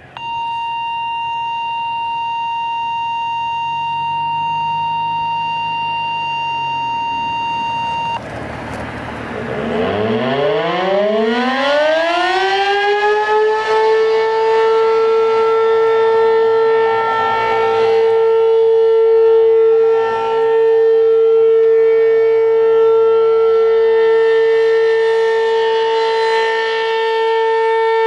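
A steady high electronic tone for about eight seconds, then an ASC RM-127 outdoor warning siren winds up from a low growl to full pitch over about four seconds. It holds a steady tone for its monthly test.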